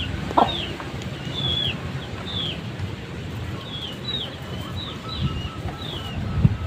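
A bird chirping over and over, short high notes that slide downward, about one or two a second, over a low rumble.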